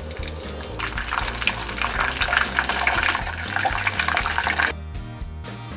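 Hot oil sizzling and crackling around breadcrumb-coated mashed-potato balls deep-frying in a saucepan, over background music. The sizzling grows louder about a second in and cuts off near the end, leaving only the music.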